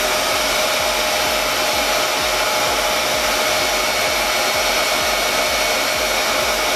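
Revair reverse-air hair dryer running steadily, its base unit pulling air through the hose and drawing a section of hair into the wand: an even rush of air with a steady whine.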